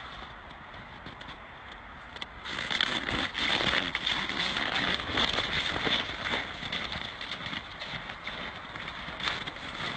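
Horse's hooves thudding and crunching in snow as it bucks and runs, a rapid run of knocks that grows loud a couple of seconds in and eases off after a few seconds, over a steady background hiss.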